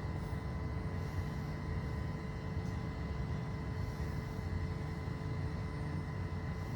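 Steady low background rumble with a faint, even hum over it, unchanging throughout.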